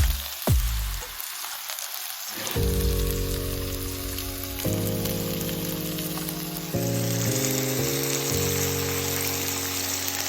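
Meat and vegetables sizzling on a tabletop grill, a steady frying hiss, under background music of held chords that change every second or two.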